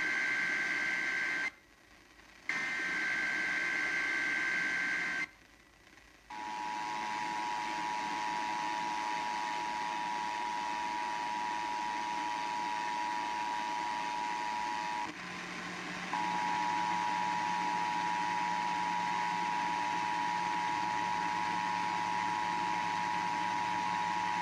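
Emergency Alert System alert tones from an FM broadcast: shrill warbling SAME header data bursts, one ending about a second and a half in and another from about two and a half to five seconds in. About six seconds in comes the steady two-tone EAS attention signal, which breaks off briefly about two-thirds of the way through and then resumes.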